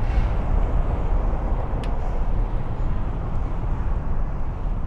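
Steady low rumble and hiss of wind on the microphone of a camera moving along with a group of cyclists on a brick path, with a single click about two seconds in.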